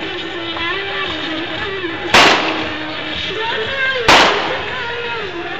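Two loud, sharp explosive bangs about two seconds apart, over crowd noise and music with a wavering melody.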